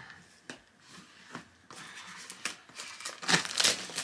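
Plastic wrapping crinkling and tearing as it is worked off a small cardboard box by hand: a few light clicks at first, then a run of crackling that grows louder near the end.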